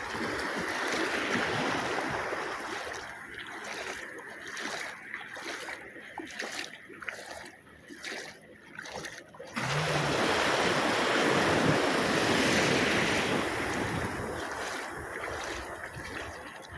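Shallow sea waves washing and breaking around the legs, with wind on the microphone; a louder surge of surf comes in about ten seconds in.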